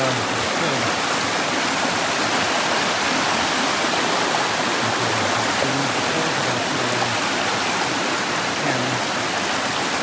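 Mountain creek rushing, a steady, loud wash of water noise, its flow strong with snowmelt.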